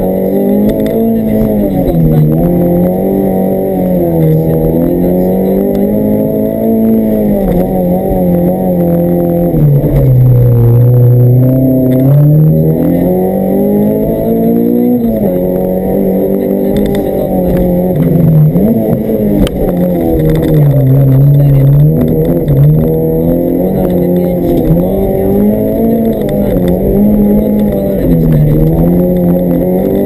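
Honda B16B 1.6-litre DOHC VTEC four-cylinder engine of a rally Honda Civic, heard from inside the cabin, driven hard: the engine note repeatedly climbs and drops as the car accelerates and lifts off, with a deeper low-revs stretch about ten seconds in.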